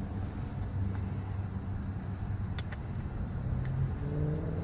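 A steady low rumble, like a running motor or engine, with a few short light clicks from handling parts.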